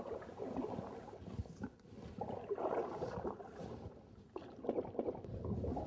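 Canoe paddle dipping and pulling through river water: several uneven, splashy strokes with gurgling.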